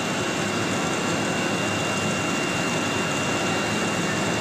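Steady machine noise from the powered-up CNC engraving router and its equipment: an even, constant hiss with a thin high whine held on one pitch.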